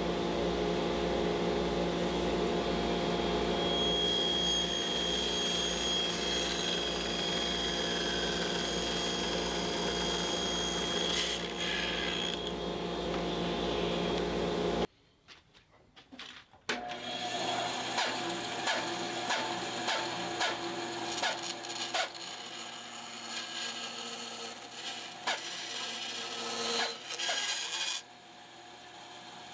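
Table saw running with a steady hum and a high whine, cutting PVC pipe. About halfway through the sound breaks off and a band saw takes over, cutting through the PVC with rasping scrapes and ticks.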